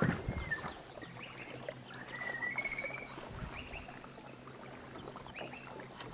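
Boat noises while a big Murray cod is played on a baitcasting rod: a knock at the start and scattered clicks of handling. A low steady hum starts about a second in, and short high chirps come and go.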